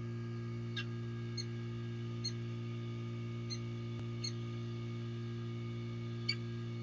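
Steady low electrical hum from the nest-box webcam's microphone, with short high bird chirps about six times, unevenly spaced.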